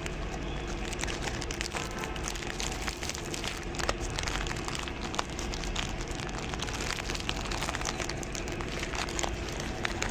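A dog crunching and chewing dry biscuits: a run of small crackly crunches over a steady background hiss.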